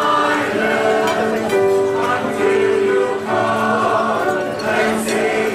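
Mixed choir of women's and men's voices singing together in parts, with long held notes.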